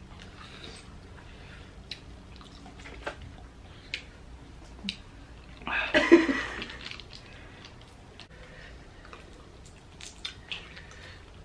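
Boiled crawfish being eaten close to the microphone: scattered sharp clicks and wet smacks of shells being cracked, peeled and sucked, with chewing. A short burst of voice about six seconds in.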